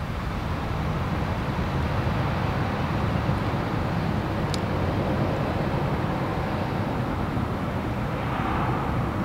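Twin-engine jet airliner's engines running at high power as it rolls away down the runway: a steady, loud jet roar.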